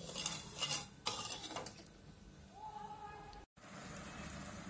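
Steel spoon scraping and clinking against a steel kadhai while sugar syrup is stirred, four quick strokes in the first second and a half. After that comes a soft steady hiss of the syrup heating toward the boil, broken by a brief dropout about three and a half seconds in.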